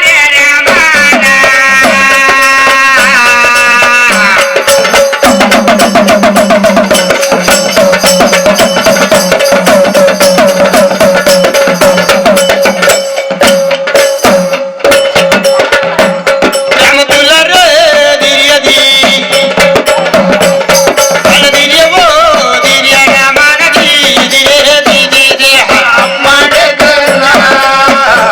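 Indian devotional folk music: a hand drum beating steadily under one held drone note, with a wavering melody above it.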